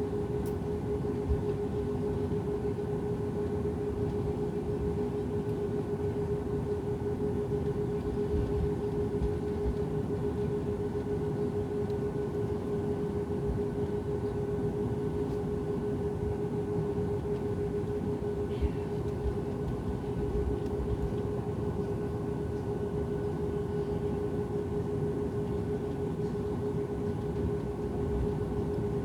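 Airliner cabin noise while taxiing: the jet engines running steadily with a constant hum over a low rumble.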